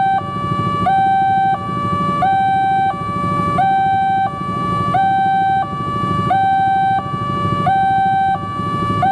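Railway level-crossing warning alarm sounding its electronic two-tone signal. A higher and a lower tone alternate about every two-thirds of a second, with a low rumble underneath. The alarm means the crossing is closed for an approaching train.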